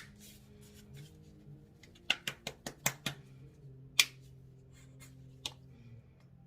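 Sharp plastic clicks and taps from handling a leave-in conditioner bottle and its cap: one at the start, a quick run of about six clicks around two to three seconds in, then single clicks near four and five and a half seconds.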